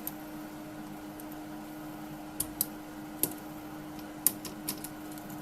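A few light, scattered clicks of small metal gearbox parts being handled over a steady low hum.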